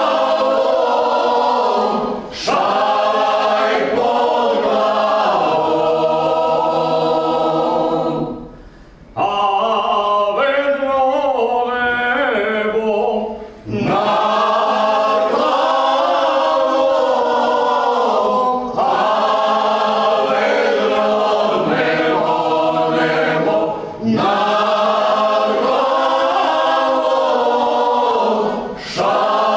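Croatian traditional folk song sung unaccompanied by a small vocal group in close harmony, held phrases broken by short breaths, the longest break about nine seconds in.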